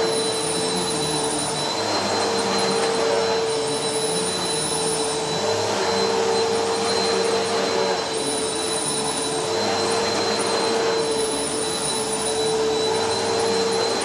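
Vacuum cleaner running steadily over hardwood floor and rugs, its motor giving a constant whine.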